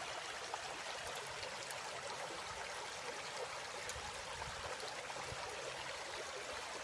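Steady rush of flowing water with a few faint small ticks.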